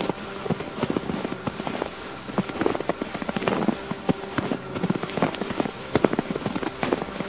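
Boots crunching through fresh, deep snow, a crisp crackling crunch with each step, about one step a second.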